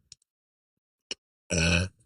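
A girl's single short, loud burp about one and a half seconds in, after near silence.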